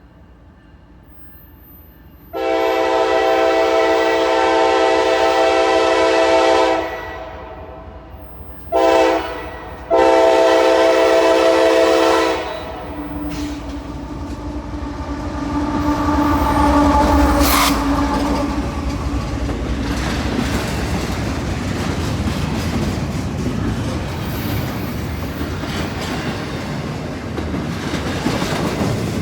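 CSX freight locomotive's multi-chime air horn sounding a long blast, a short one and another long one, then the locomotives pass with a low diesel rumble and a sharp crack. The double-stack freight cars follow, rolling by with steady wheel and rail noise.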